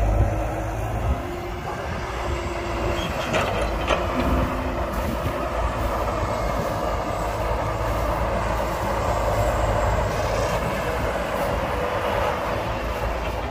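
Excavator's diesel engine running steadily under load while digging, with a low drone and a broad rushing noise, and a couple of brief knocks about three and four seconds in.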